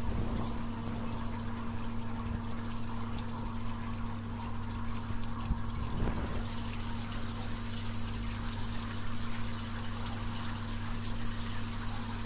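Waterfall: falling water running steadily, with a steady low hum underneath.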